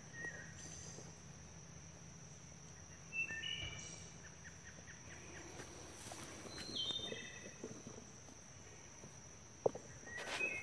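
Quiet outdoor garden ambience: a steady high insect drone with a few short bird chirps scattered through it, some soft rustling, and one sharp click near the end.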